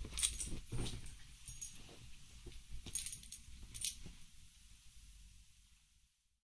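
Small dog shaking and tugging a plush toy on a bed: metal collar tags jingle in several short bursts over soft rustling and thumps, fading out near the end.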